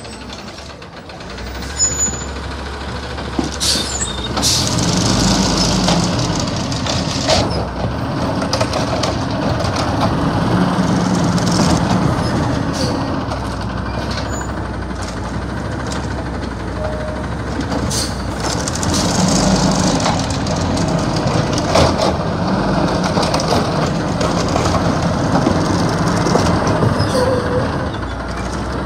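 Automated side-loader garbage truck's engine running loud and steady, picking up from about four seconds in as its hydraulic arm reaches out toward the cart, with a few sharp clanks along the way.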